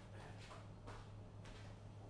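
Near silence: quiet room tone with a steady low hum and a few faint, brief noises about half a second apart.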